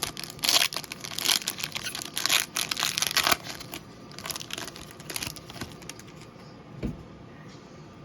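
Foil trading-card pack wrapper crinkling and tearing as it is opened, followed by quieter rustling as the cards are handled, with a single soft thump near the end.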